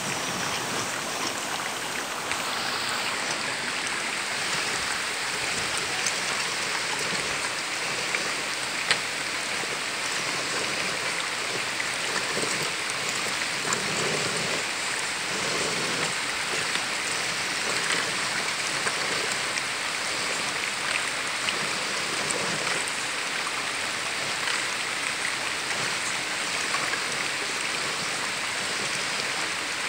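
Shallow creek water running steadily over rocks, with a few small clicks and knocks, the sharpest about nine seconds in.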